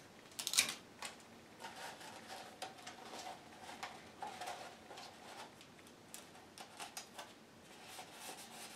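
Clear tape torn from a desk tape dispenser in a short rip about half a second in, then faint rustling and small clicks as the tape is pressed onto a paper cone.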